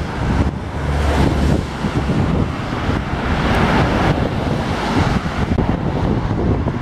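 Wind rushing over the microphone of a handheld camera on a moving bicycle, with road traffic running alongside; a stronger gust rumbles about a second in.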